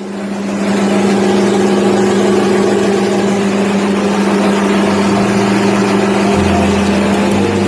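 Multi-purpose forage and waste chopper machine running with a steady, loud hum, rising to full level within the first second.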